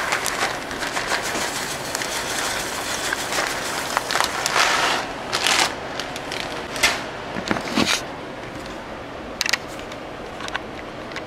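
Dry rice poured from its crinkling bag into a pot of chicken soup: dense rustling and crackling with sharp knocks and rattles, easing off about eight seconds in to a few scattered clicks.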